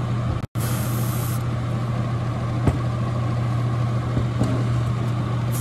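Spray booth exhaust fan running with a steady hum, while an airbrush gives a short hiss of paint spray about half a second in and starts hissing again near the end. A light click about two and a half seconds in.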